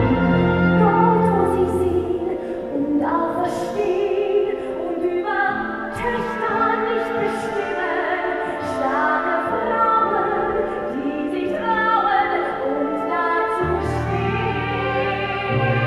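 A woman singing with a live symphony orchestra, her amplified voice carrying held notes over strings. Low bass notes come in near the end.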